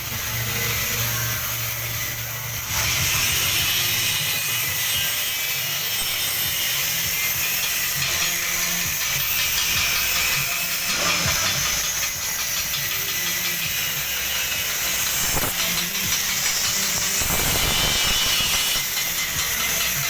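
Steady loud hissing noise of metal fabrication work, over a low machine hum.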